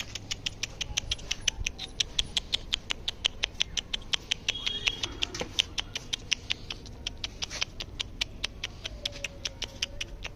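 Rapid, very even clicking, about seven clicks a second, that stops at the very end, with a brief thin high whine about halfway through.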